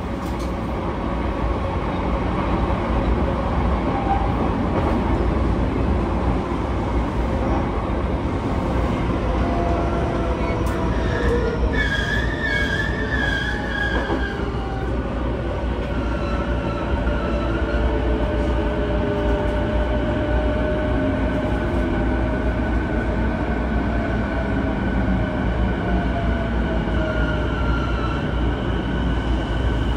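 Running sound inside a JR E233-1000 series electric train car: a steady rumble of wheels on track under the whine of its Mitsubishi IGBT-VVVF inverter motors. About twelve seconds in there is a brief wavering wheel squeal. Through the second half the inverter tones slowly fall in pitch as the train slows toward a station.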